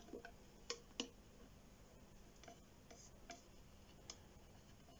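Near silence broken by a few faint, sharp clicks, the loudest two close together about a second in: long tongs knocking against the clear enclosure and the web inside while nudging a tarantula along.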